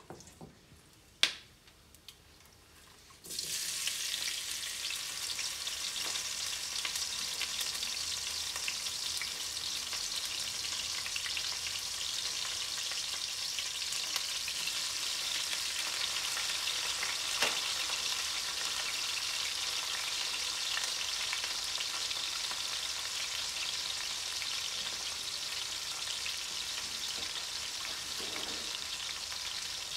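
A single sharp knock a little over a second in, then sliced red onion hits hot ghee and oil in a stainless steel pan and starts sizzling suddenly about three seconds in. The frying goes on loud and steady.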